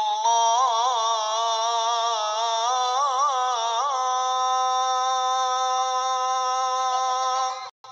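A high voice singing the azan, drawing out the line 'Ashhadu anna Muhammadan Rasulullah' in one long melismatic note. It runs two waves of ornaments in the first four seconds, then holds a steady tone that stops abruptly just before the end.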